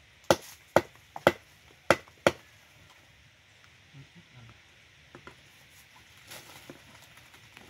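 Machete chopping bamboo: about six sharp, loud strikes within the first two and a half seconds, then a few faint knocks as the bamboo is worked more lightly.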